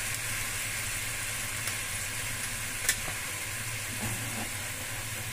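Potato curry gravy simmering in a karahi, a steady sizzling hiss from the bubbling liquid at the pan's edges, with one sharp click about three seconds in.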